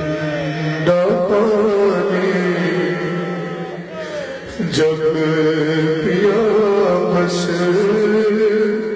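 A man singing a noha, an Urdu lament, unaccompanied into a microphone, drawing out long held, wavering notes.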